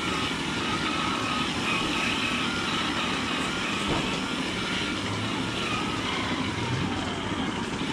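Steady machinery noise of a rotary milking parlour with its vacuum and milking equipment running, and a few faint whines over the noise.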